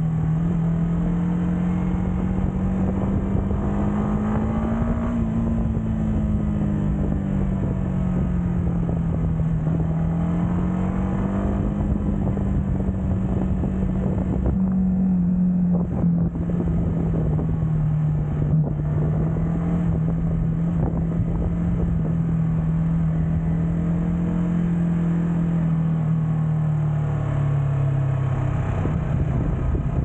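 Yamaha MT motorcycle's engine and exhaust while being ridden at a moderate cruise, the engine note rising and easing gently with the throttle, with wind rushing over the microphone.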